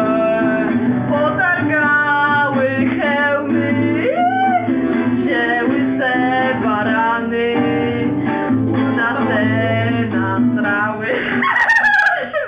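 Two girls singing together in Polish over an acoustic guitar, breaking into laughter near the end.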